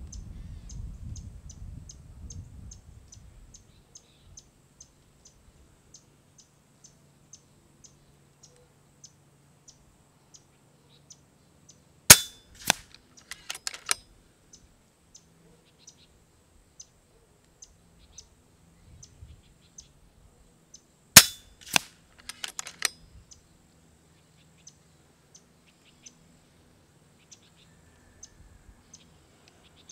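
Two shots from an FX Impact X .25 regulated PCP air rifle, about nine seconds apart, each a sharp crack followed over the next second or two by a cluster of lighter clicks and knocks.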